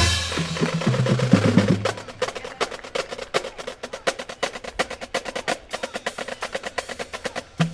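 Marching band: a loud full-band hit with low brass notes dying away over the first two seconds, then the percussion section alone playing a fast pattern of sharp clicks and snare taps; low notes come back in right at the end.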